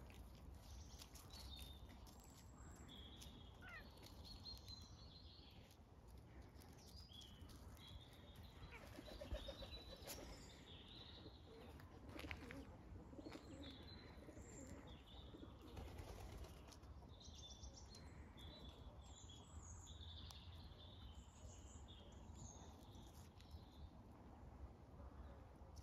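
Faint small-bird chirps, short and high, repeated throughout, with doves' wings flapping.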